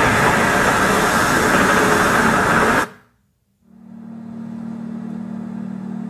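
Boat-in-a-storm ambience: loud, dense storm noise that cuts off suddenly a little under three seconds in. After a brief silence, a quieter bus station ambience fades in, carried by a steady low hum.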